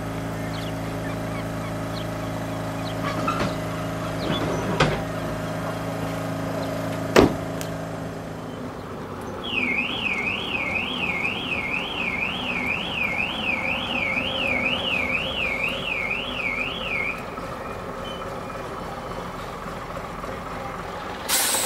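A vehicle engine or motor running steadily, with two sharp knocks, stopping about eight seconds in. Then an electronic alarm warbles up and down about twice a second for about seven seconds.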